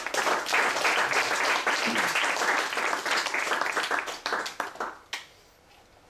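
Audience applauding: a dense patter of many hands clapping that thins out and stops about five seconds in.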